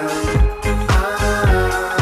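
Background music with a steady beat and a funk-soul feel.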